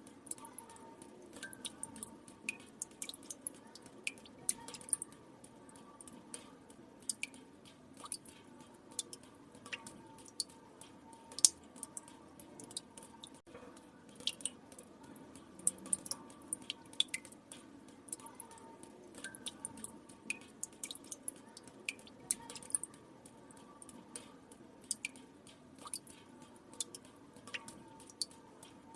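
Water drops falling into still water, irregular sharp drips a few times a second, some with a short ringing plink. One drop about midway is much louder than the rest.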